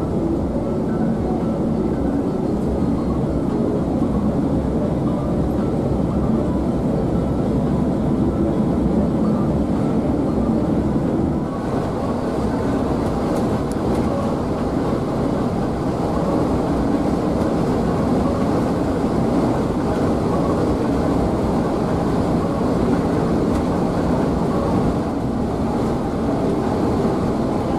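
Steady drone of a Scania K360iB coach cruising at highway speed: engine and tyre noise heard inside the cabin. It dips briefly about eleven seconds in, then carries on the same.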